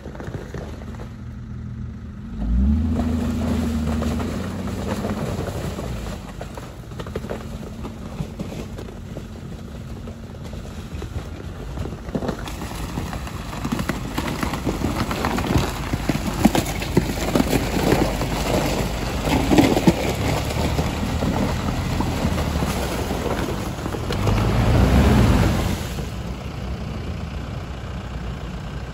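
Jeep Wrangler engines running as the SUVs drive through a frozen creek, with the ice cracking and crunching under the tyres through the middle of the stretch. The engine revs up briefly about two and a half seconds in and again near the end.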